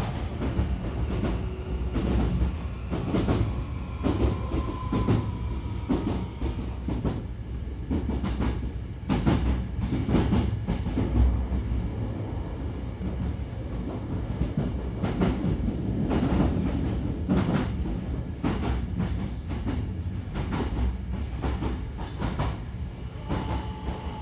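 Hankyu train car running, heard from inside by the closed doors: a steady low rumble with irregular clacks of the wheels over rail joints, and a faint falling whine near the end.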